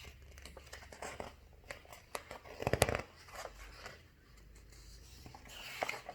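Paper rustling and crinkling with light clicks, as a picture book's page is handled and turned, loudest a little before the middle.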